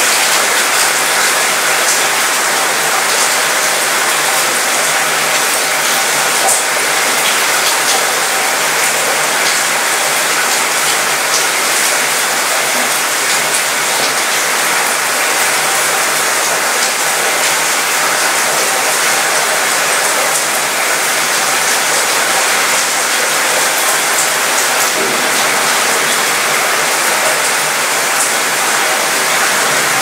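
Steady rain falling on a cruise ship's mostly metal balcony and railing. Drops patter and rattle on the metal over an even hiss of rain.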